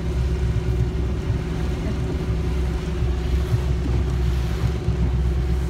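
Motorboat engine running steadily, a low rumble with a constant hum, with wind buffeting the microphone.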